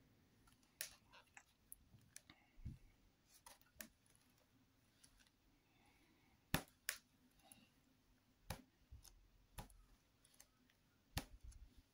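Pages of a large hardcover illustrated book being turned by hand: scattered sharp paper flicks and snaps, the loudest a pair about six and a half seconds in, over near silence.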